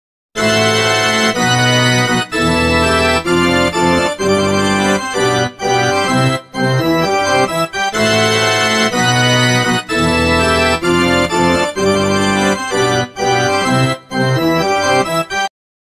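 Background music: an instrumental tune of held notes and chords. Its phrase starts over about halfway through, and it cuts off just before the end.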